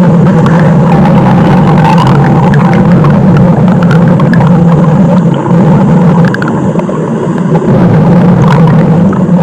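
Stomach growling sound effect: a loud, unbroken low rumble.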